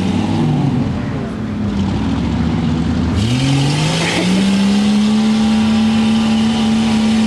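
Off-road Jeep's engine revving hard in mud. The revs drop back about a second in, then climb sharply a little after three seconds and hold high and steady while the wheels spin.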